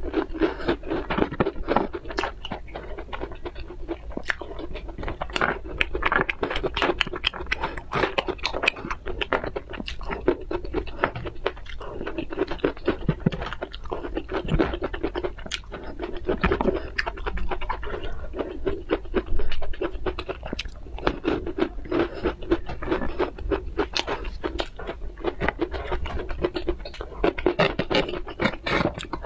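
Close-miked eating: chewing with small crunches and wet mouth clicks, in a dense, unbroken run, mixed with the scrape of fingers picking food off a plastic tray.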